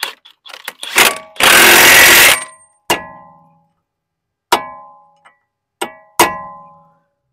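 Cordless impact wrench hammering a new CV axle nut tight for about a second. Then four sharp hammer blows on a punch, each ringing briefly, as the axle nut's collar is staked into the groove on the axle shaft to lock it.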